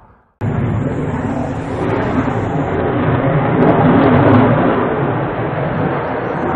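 Fighter jet flying overhead: a loud, rushing jet engine noise that starts abruptly just after the start, swells to a peak about four seconds in and then eases slightly.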